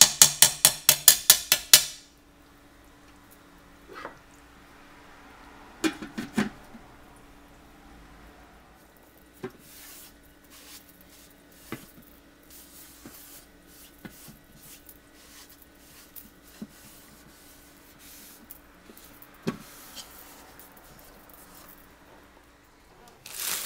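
Metal tongs clicking rapidly against the cooker pot while stirring pulled pork, about six clicks a second for the first two seconds. Then a few scattered knocks and clatters follow as the lid goes back on, over a faint steady hum.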